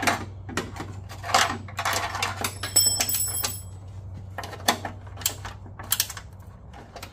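Metal hand tools clattering and clinking off camera, a run of irregular clicks and knocks with a brief metallic ring about three seconds in, over a steady low hum.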